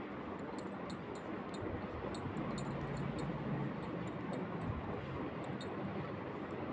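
Metal knitting needles and wool being worked, giving faint quick ticks and rustling over a steady low background hum.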